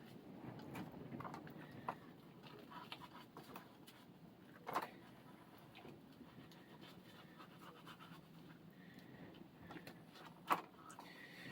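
Faint panting breaths, with a few soft clicks and knocks, the clearest about five seconds in and near the end.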